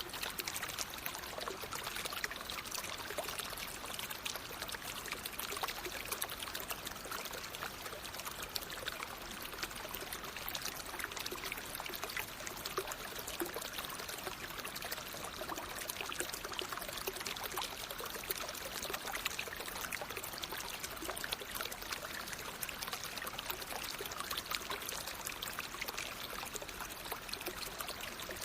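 Natural stream water flowing steadily, a continuous splashing trickle and rush with a fine crackling texture that does not change.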